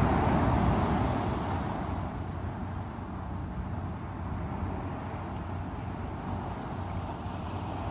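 Sea waves: a wave breaks in the first second or so, then fades to a steady wash of surf.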